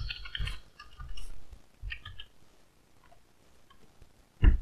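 Computer keyboard typing and clicking in short bursts over the first couple of seconds, then a pause, and a single loud thump near the end.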